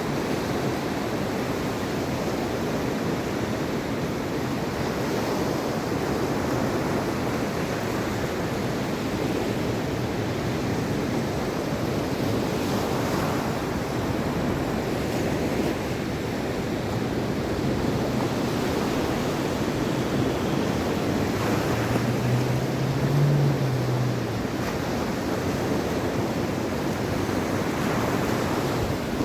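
Mediterranean Sea surf: a steady rush of breaking waves that swells and eases gently. A brief low hum rises over it about three-quarters of the way through.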